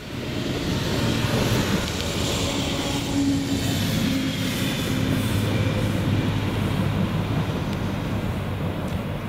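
EMD GP40PH-2 diesel locomotive approaching at the head of a passenger train: a steady diesel engine drone with a low hum.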